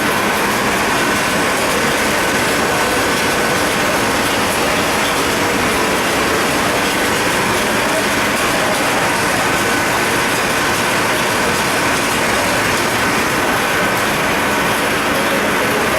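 Powerskinner MSA 5120 LS4 sleeve-applying machine running at a steady pace: an even, continuous mechanical noise with a faint steady high whine.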